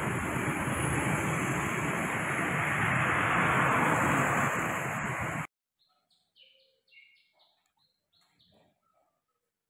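Steady hiss of a wet street in the rain, with vehicles' tyres on wet asphalt, which cuts off suddenly a little over halfway through. After it, a short run of faint bird chirps.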